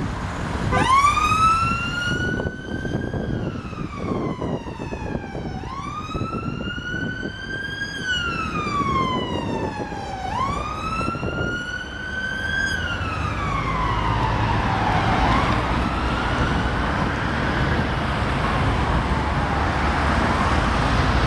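A police car siren on a slow wail, its pitch climbing and falling about every five seconds. After three clear sweeps it grows fainter and blurred, with echoes, as the car moves away. Low road-traffic rumble runs underneath and swells toward the end.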